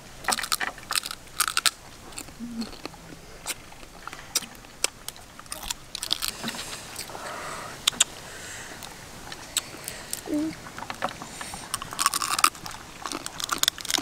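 Cooked crab shells cracking and crunching as they are pulled apart by hand and bitten, with chewing, in many short sharp cracks throughout.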